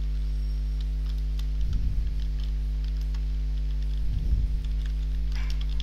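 Steady electrical mains hum with faint, scattered computer keyboard key clicks as code is typed, plus two soft low bumps about 2 and 4 seconds in.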